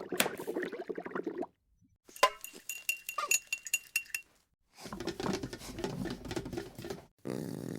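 Light clinking of dishes and utensils: a quick run of sharp metallic clinks with a bright ring, between other noisy stretches.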